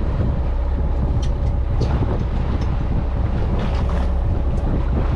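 Charter fishing boat's engine running steadily underway, with wind buffeting the microphone.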